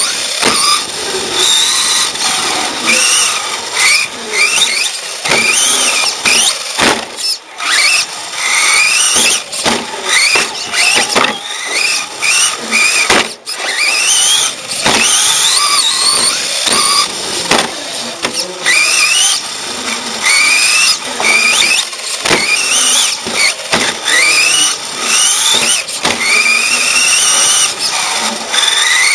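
Radio-controlled car's electric motor and gears whining, heard from a camera mounted on the car. The pitch climbs with each burst of throttle and drops away again, over and over, with occasional sharp knocks.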